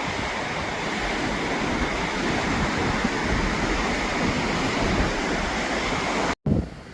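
Steady rushing noise of wind and sea surf, with wind buffeting the microphone in low gusts. The sound drops out abruptly near the end and comes back much quieter.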